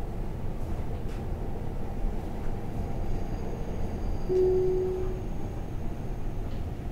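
Tobu 60000 series electric train running, heard from inside the car as it pulls away from a station: a steady low rumble, with a faint high tone and a brief steady mid-pitched tone about four seconds in.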